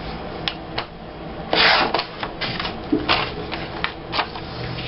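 Photo prints being cropped on a paper trimmer: scattered light clicks and taps as the paper and trimmer are handled, and one short, louder swish about a second and a half in as the blade slides through.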